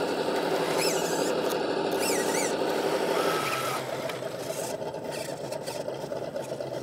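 Electric motor and geartrain of a ROC Hobby Willys Jeep RC crawler whining steadily under load as it climbs out of a rock rut. The tone changes a little past halfway as the truck crests the top.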